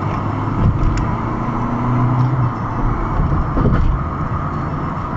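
Car engine and road noise, heard from inside the moving car's cabin: a steady low hum with a faint engine tone that rises and falls slightly.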